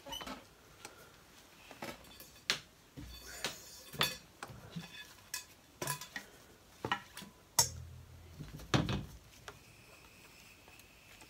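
Scattered clicks, knocks and light clinks as a gun-cleaning cable is threaded and pulled through the steel barrels of a Beretta 686 Silver Pigeon over-under shotgun and the barrels are handled on a table. Two louder knocks come about eight and nine seconds in.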